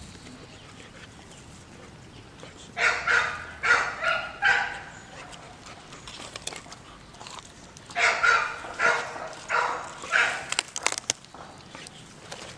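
A dog barking in two short runs of several barks, four barks about three seconds in and five more about eight seconds in.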